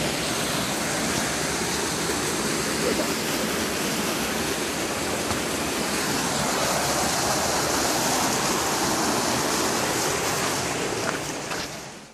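Steady rushing of river water, fading out near the end.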